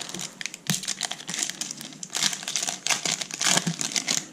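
Foil trading-card pack being torn open and its wrapper crinkled, in irregular crackling rustles with the loudest clusters about two and three and a half seconds in.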